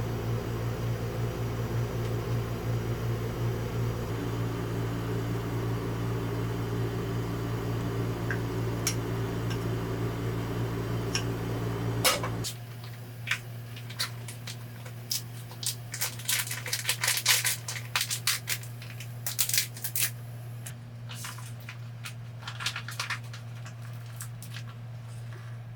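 A small appliance's motor hums steadily, then switches off with a click about halfway through. Scattered clicks and rustling handling noises follow.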